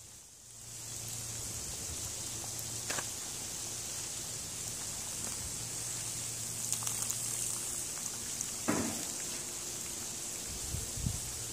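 Catfish fillets deep-frying in hot oil in a cast iron Dutch oven: a steady, high sizzle that fades in over the first second. Two brief knocks come about three and nine seconds in.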